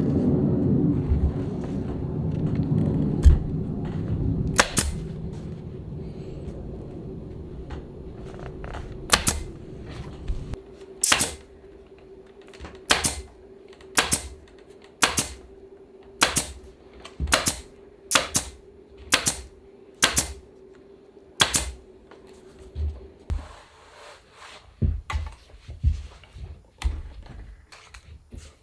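Upholstery staple gun firing staples one by one into a wooden chair frame to fix the new cover, about one sharp snap a second, with a steady hum underneath.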